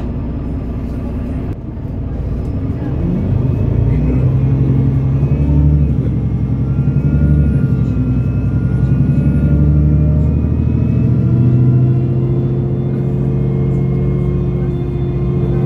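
Otokar Kent C12 city bus engine heard from inside the passenger cabin, revving up about two seconds in as the bus accelerates, then running steadily at higher revs.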